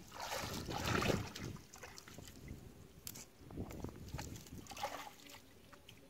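Shallow water splashing and sloshing as hands work through it, loudest for about a second near the start, then a few smaller splashes.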